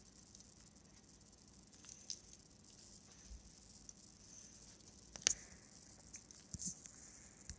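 Quiet room tone: a steady faint hiss with a few scattered small clicks and taps, the sharpest about five seconds in.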